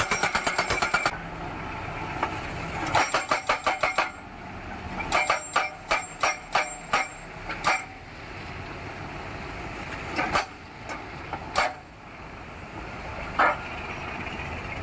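Hydraulic post driver hammering a steel crash-barrier post into the ground in rapid runs of blows, about seven a second, over the steady run of the machine's engine. A run of blows stops about a second in, another short burst comes about three seconds in, then scattered strokes and a few single knocks.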